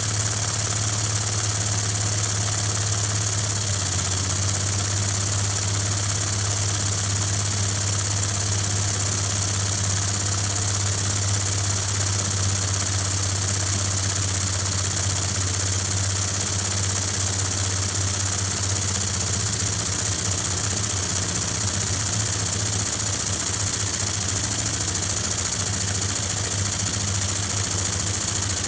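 3D-printed compressed-air engine running steadily on about 70 psi air: a low steady hum under a loud hiss of air that reaches high up.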